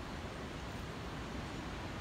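Steady low rumble of wind on the microphone, over the even hiss of distant ocean surf.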